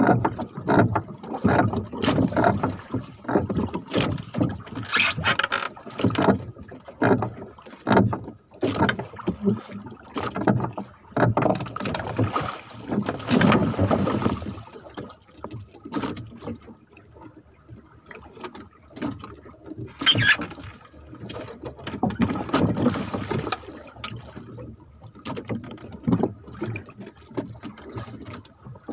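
Irregular knocks, bumps and water splashes on a small wooden fishing boat as gear and line are handled at the gunwale, busy in the first half and sparser later on.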